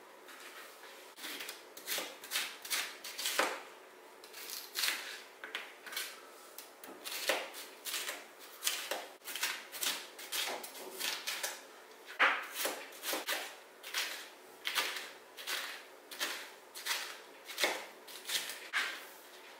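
Kitchen knife chopping a red bell pepper on a plastic cutting board: a long run of sharp taps of the blade hitting the board, about two a second.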